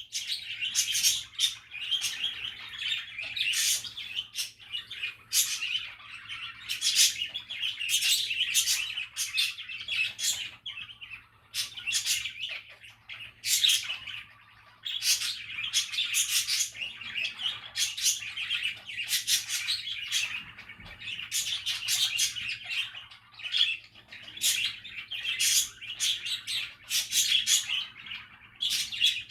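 Budgies (budgerigars) chattering and warbling, a near-continuous stream of chirps, squeaks and short sharp calls, with a faint steady low hum underneath.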